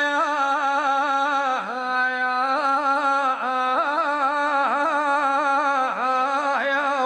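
A man's voice singing an Iraqi mourning lament, holding one long wordless note that wavers and flicks down in quick ornaments. Near the end it stops and an echo dies away.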